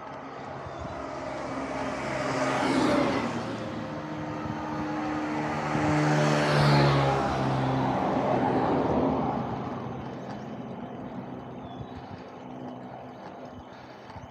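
Motor vehicles passing on the road close to a moving bicycle, one about three seconds in and a louder, longer one around six to seven seconds in. Each swells and fades with an engine tone, over steady wind and road noise.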